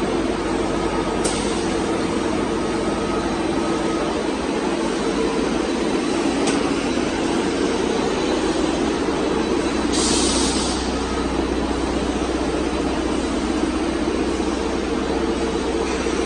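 Fibre cement roofing-sheet production machinery running: a steady mechanical drone with a couple of sharp clicks and a short hiss about ten seconds in.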